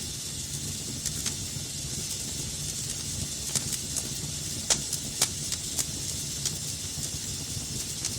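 Wood fire burning in a fireplace with a steady low rumble and hiss, and irregular sharp crackles and pops, a few louder ones about halfway through.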